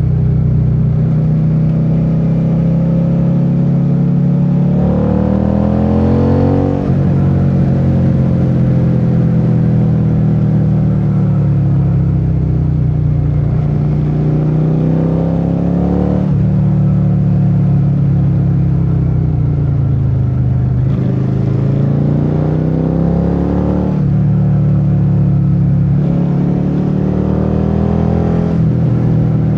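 Suzuki SV650's 645 cc V-twin engine running under way, its pitch rising as the throttle opens and dropping sharply at upshifts, about five times, with easing off between.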